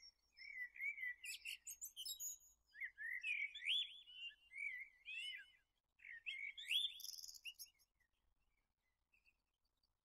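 A songbird singing a varied, warbling song of quick whistled notes and trills. It comes in three runs, with short breaks near the middle, and stops about eight seconds in.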